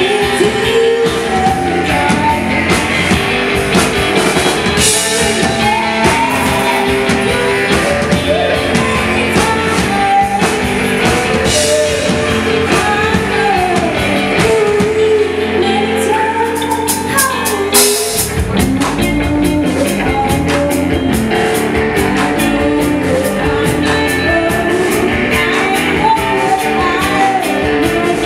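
Live rock band playing loud: electric guitars, keyboard and drums, with a man singing over them. About eighteen seconds in, the low end drops away briefly and then the full band comes back in.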